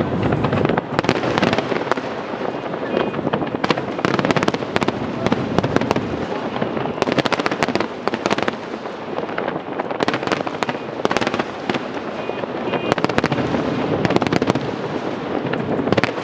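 Fireworks display going off in a continuous dense stream of sharp bangs and crackling, with clusters of rapid reports about every one to two seconds.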